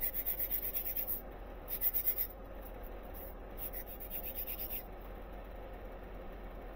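A small brass printing plate rubbed back and forth on 400-grit sandpaper laid on a flat stone slab, to sand it flat. It makes a dry scratching in three short runs of quick strokes, about five a second, and stops about five seconds in.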